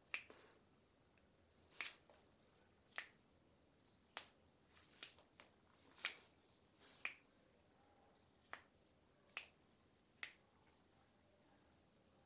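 A series of sharp finger snaps, about ten, roughly one a second, from fingers being pulled and snapped during a hand massage.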